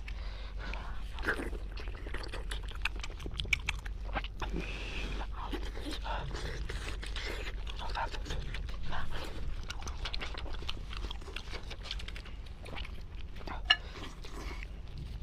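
Close-miked eating of pork: chewing and biting with wet mouth smacks and small crunches, over a steady low hum. A single sharp click stands out near the end.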